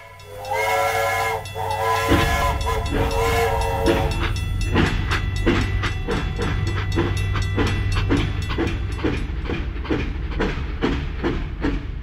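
Toy steam locomotive's electronic sound: a steam-whistle effect sounds three times, then a steady chugging rhythm over a low motor hum as the train runs along the track.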